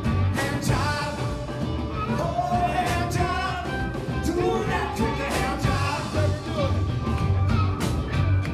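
Live blues band playing an upbeat rock-and-roll number: a steady beat underneath a lead melody that bends and wavers in pitch.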